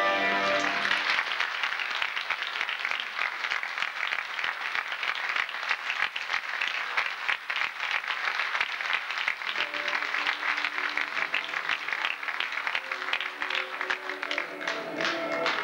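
Theatre audience applauding after an orchestral waltz ends about a second in. Soft music starts again under the clapping about two-thirds of the way through.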